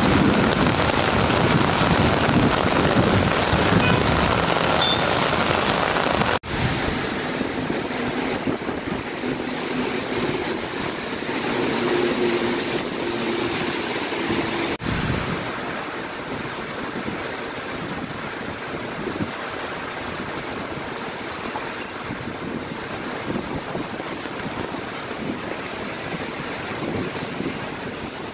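Heavy monsoon rain pouring down on a street, a dense steady hiss of rain on road and roofs. It is louder for the first six seconds and drops out abruptly for an instant twice, about six and fifteen seconds in.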